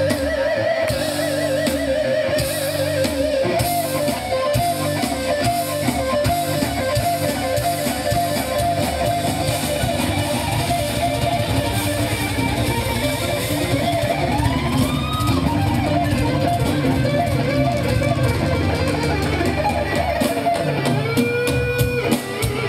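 Live heavy metal band playing, distorted electric guitar to the fore.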